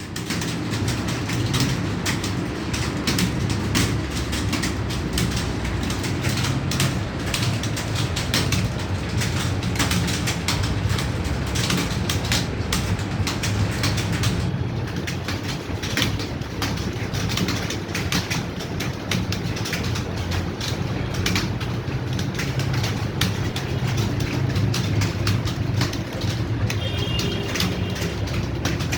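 Many computer keyboards being typed on at once during a timed typing test, making a dense, unbroken clatter of key clicks over a low hum.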